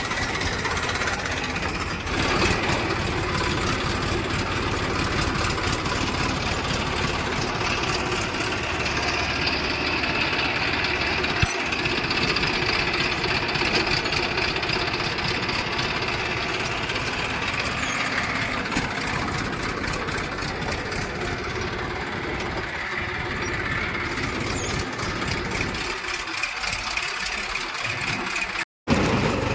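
Diesel engine of a heavy tractor or backhoe loader running steadily, with the sound cutting out for a moment near the end.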